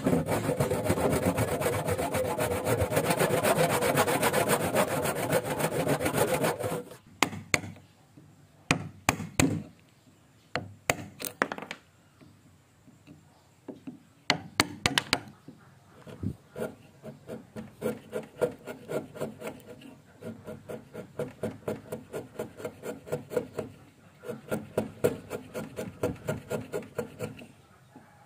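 Hand saw cutting into the end of a hardwood beam with fast, steady strokes for about the first seven seconds. Then a few sharp, separate knocks and cracks as a chisel splits away the waste, followed by rhythmic scraping strokes, about three a second, as the chisel pares the wood.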